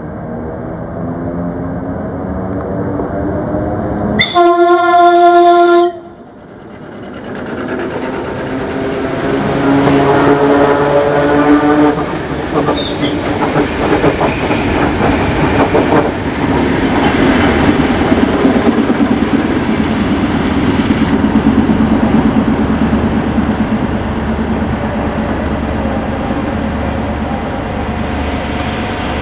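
ER2T electric multiple unit sounding its horn once for about a second and a half, about four seconds in. It then runs close past with a whine that rises in pitch as it speeds up, and its wheels rumble and clatter over the rail joints.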